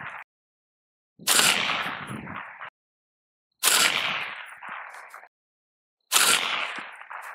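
Three suppressed rifle shots about two and a half seconds apart, from a 16-inch mid-length AR-style rifle with a Daniel Defense SoundGuard 5.56 suppressor, firing supersonic .223 Remington ammunition. Each sharp report trails off in echo over about a second and a half and then ends abruptly.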